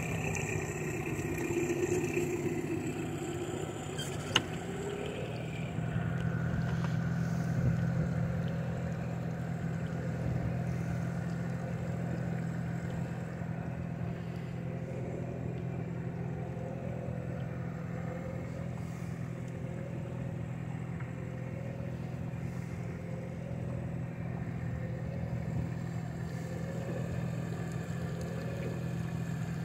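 Boat engine idling with a steady low hum that grows a little louder about six seconds in, and a single sharp click about four seconds in.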